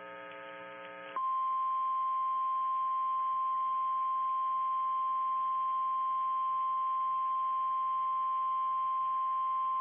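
About a second of low buzzing hum, then the NOAA Weather Radio warning alarm tone: one steady high tone held for about nine seconds. It signals that a warning broadcast, here a severe thunderstorm warning, is about to follow.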